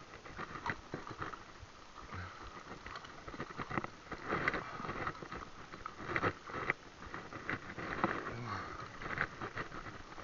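Irregular splashing and scattered knocks at the water's edge as a hooked catfish is brought in to the shore.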